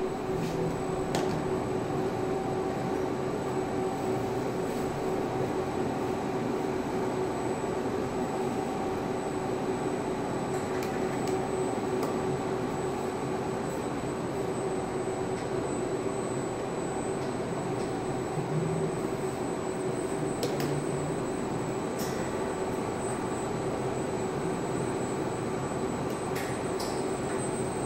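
Steady machine hum with a constant mid-pitched drone and a faint high whine, broken only by a few faint ticks.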